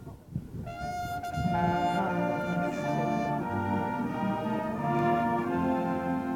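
Military brass band playing held brass chords; after a brief break right at the start, the band comes back in about half a second later and plays on.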